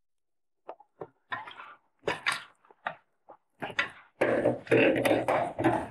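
Ground beef frying in olive oil in a pan, stirred with a spatula: short scrapes and sizzles in irregular bursts, getting denser and louder over the last couple of seconds.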